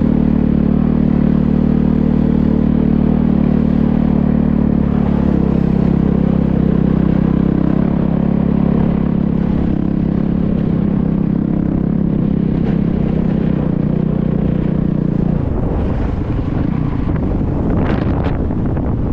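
Motorcycle engine running at a steady pitch, then about fifteen seconds in the steady engine tone stops and rough wind buffeting on the microphone takes over.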